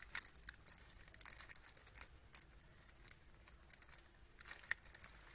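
Crickets chirring steadily in a high, thin band, with a few faint scattered clicks and rustles.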